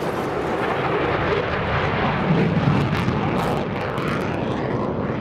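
Jet noise from an F-22 Raptor's twin Pratt & Whitney F119 afterburning turbofans as the fighter makes a low pass: a loud, steady rush that is loudest about halfway through.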